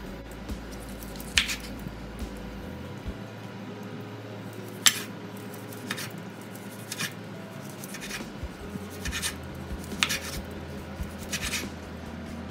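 Broad kitchen knife slicing through boiled beef on a bamboo cutting board: the blade knocks sharply against the wood at irregular intervals, a second or more apart, with soft scraping between.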